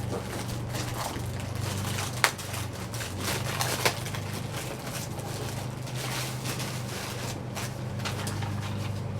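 Packaging crinkling and rustling as it is opened by hand, with scattered small clicks and two sharper ones, about two and four seconds in, over a steady low hum.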